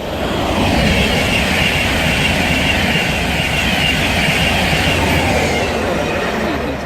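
An InterCity 225 set, a Class 91 electric locomotive with its coaches, passing through at speed: a loud, steady rush of wheels on rail that builds in the first second and eases off near the end.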